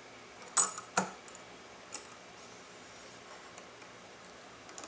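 Metal parts of a homemade airgun test rig being handled and set ready to fire: two sharp metallic clacks about half a second and a second in, then a few lighter clicks and taps.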